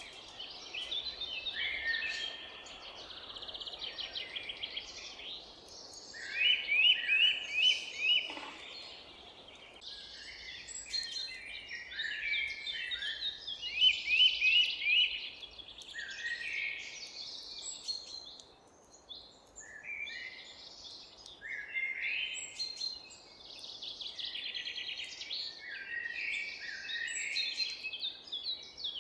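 Several forest songbirds singing over one another, a dense mix of chirps and quick trills. About a quarter of the way in, one bird repeats a short falling note about five times in quick succession. A faint steady hiss of outdoor background noise runs beneath.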